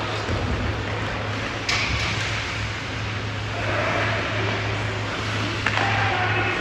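Ice hockey game sounds in a rink: sharp knocks of puck or sticks, once about a second and a half in and again near the end, over a steady low hum, with faint distant shouts.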